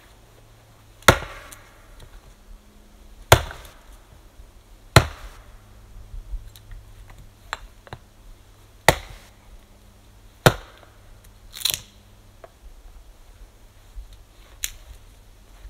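Hatchet chopping into a standing tree trunk: six hard, irregularly spaced blows, with a few lighter knocks between them.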